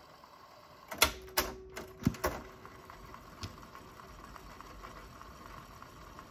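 Sanyo M-X650K boombox's cassette deck piano-key transport buttons clunking, four sharp clicks in quick succession about a second in. Then the faint steady whir and light ticking of the cassette mechanism winding the tape fast.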